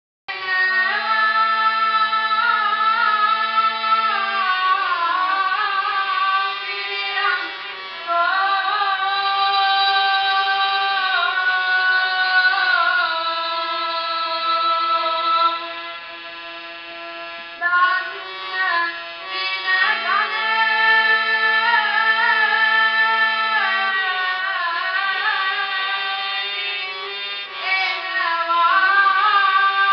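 A boy singing an ornamented melody into a microphone, heard through the hall's amplification, over an instrumental accompaniment of long held notes. The singing eases off briefly in the middle, then returns to full voice.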